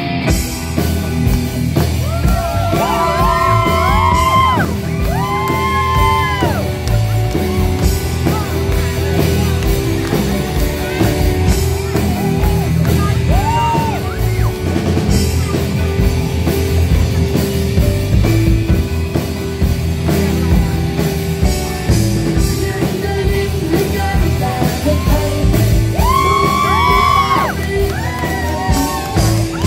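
Live rock band playing through amplifiers: electric guitars, bass guitar, drum kit and keyboard, with a singer's sung lines coming in a few seconds in, briefly in the middle and again near the end.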